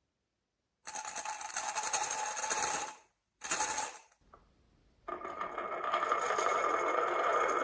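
Marbles rolling and clattering down a wooden marble run: a dense rattle of about two seconds, then a shorter burst after a brief gap. From about five seconds in, a steady whirring rattle starts and keeps going.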